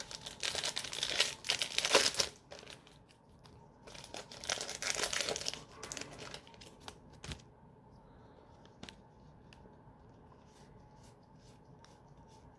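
Foil Yu-Gi-Oh booster pack being torn open and crinkled by hand, in two bursts of crackling in the first six seconds, followed by a few light clicks as the cards are handled.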